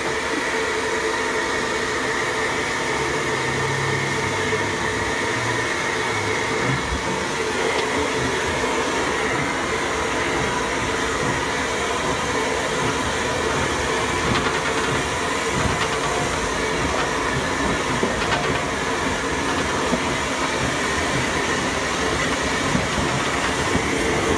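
A small steam locomotive on the move, heard from its footplate: a steady hiss and the rumble of the running gear, with a faint constant tone over it.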